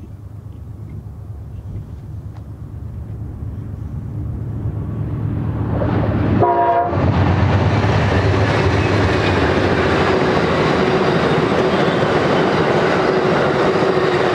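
Amtrak P42DC diesel locomotive and bi-level passenger cars approaching and passing close by: a rumble that grows steadily louder, a short horn note about halfway through as the locomotive goes by, then loud, steady wheel-on-rail noise with clickety-clack as the cars roll past.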